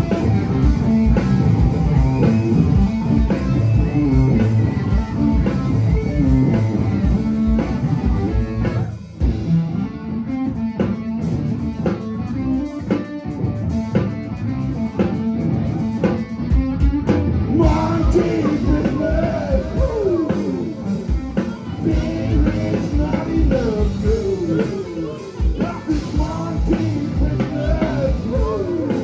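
Rock band playing live: electric guitar over a drum kit, with a brief dip in level about nine seconds in.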